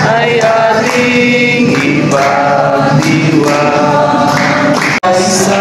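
A congregation singing a Filipino birthday greeting song together in chorus. The singing cuts out for an instant about five seconds in.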